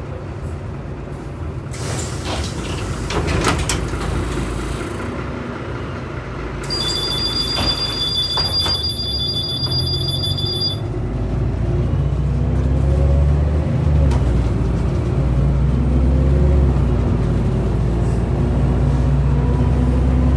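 Inside an Irisbus Citybus 12M city bus: a hiss of compressed air with a few clunks as the doors work, then a steady high two-tone warning beep for about four seconds. After that the diesel engine pulls away and accelerates, loud and low, with a gear change a few seconds later.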